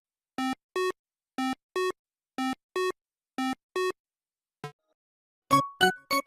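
A synthesized two-note beep, a low note then a higher one, repeated about once a second four times. Near the end, after a short click, quick plucked keyboard notes of a bouncy tune begin.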